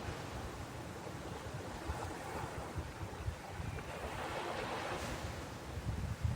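Sea waves washing on the shore, one wave swelling into a louder hiss about four seconds in, with wind buffeting the microphone in low rumbles.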